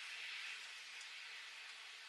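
Faint steady hiss with a few very faint ticks.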